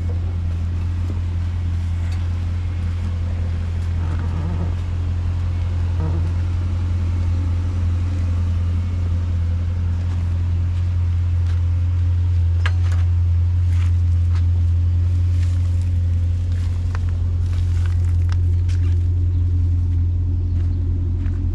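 Holden Caprice's 6-litre V8 idling through an aftermarket J-pipe exhaust, a steady low rumble with no change in revs.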